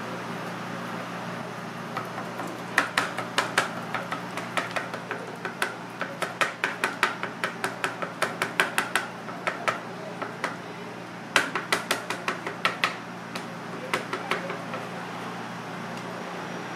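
Kitchen knife chopping and mincing soft fish on a plastic cutting board: quick, irregular taps of the blade on the board, about three or four a second. They start about two seconds in, pause briefly about two-thirds of the way through, then resume, over a steady low hum.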